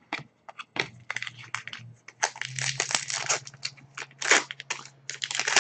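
Foil trading-card pack wrappers crinkling and tearing as packs are opened and handled, a dense run of quick rustles and crackles.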